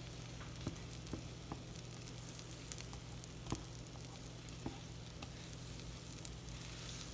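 Butter melting and sizzling in a nonstick frying pan, pushed around with a silicone spatula, with a few small taps and pops scattered through.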